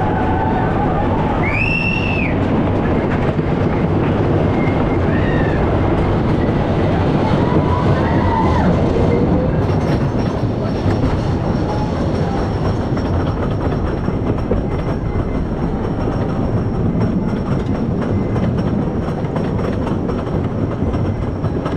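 Phoenix wooden roller coaster train rolling out and climbing the chain lift hill: a steady rumble of the cars on the wooden track with rapid, continuous clacking of the lift chain and anti-rollback dogs. A few brief high squeals in the first few seconds.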